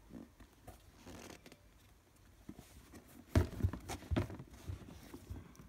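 Hands handling a pair of sneakers on a cardboard shoebox: faint rubbing and rustling, then a short cluster of knocks and scuffs about three seconds in as a shoe is gripped and moved.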